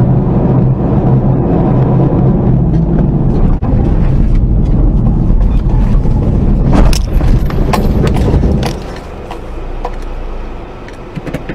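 Car leaving the road and ploughing into dry brush. A steady loud rumble from the car's road and engine noise is broken from about six and a half seconds by a run of cracks and scrapes as branches and brush strike the body. The rumble then drops sharply as the car slows.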